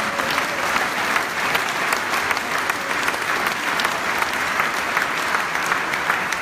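Audience applause in a hall: a steady, dense clapping from many people.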